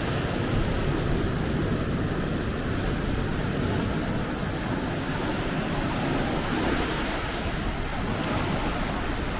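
Ocean surf washing against the coast, with wind rumbling on the microphone; a steady wash with no distinct breaks.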